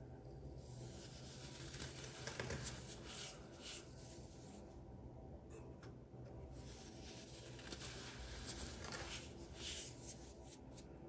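Fingers rubbing and crumbling small molded cones of dyed baking soda, a faint dry gritty scratching that comes in stretches with short pauses. There are a few sharp crackles about two and a half seconds in.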